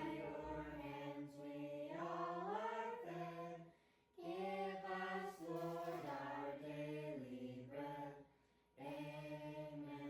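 Background music of a choir singing slow, held notes in three phrases, with short pauses between them about four and eight and a half seconds in.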